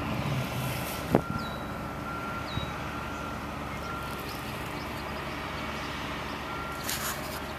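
Steady rumble of road traffic with trucks passing. There is a sharp click about a second in and two short high chirps soon after.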